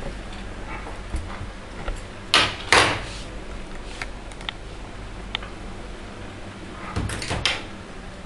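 Small scissors snipping lace thread: two pairs of sharp snips, about two and a half seconds in and again near seven seconds, with fainter handling clicks between.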